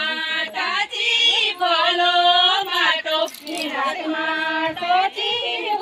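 Women singing a folk song together in long held, sliding notes, with no drums.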